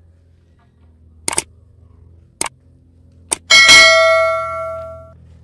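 Subscribe-button sound effect: three mouse clicks about a second apart, then a bright bell ding that rings out and fades over about a second and a half.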